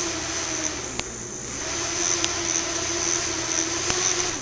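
Small electric motors of a fischertechnik model monorail car spinning its two propellers: a steady whirring with a hum, two light clicks, and a drop in level at the very end. The propellers run while the car sits stalled on the track and needs help to get going.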